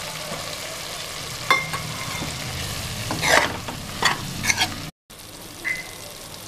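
Mutton, onions and fresh tomato pieces sizzling in a metal pan while a spatula stirs them, scraping the pan several times in the middle of the stretch. The sound cuts out for a moment about five seconds in and the sizzle is softer after it.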